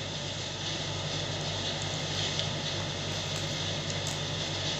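Steady background noise: a constant low mechanical hum with an even hiss above it, with no change in pitch or level.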